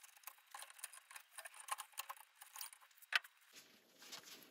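Light, scattered metallic clicks and scrapes of pliers straightening the hooked solid copper wire ends that came off an old switch, with one sharper click a little past three seconds in.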